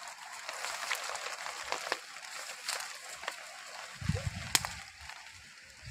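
Footsteps and rustling through dry grass and brush, with many small crackles of dry stalks and one sharp snap about four and a half seconds in. From about four seconds in, low bumping comes in, as from the camera being carried at a walk.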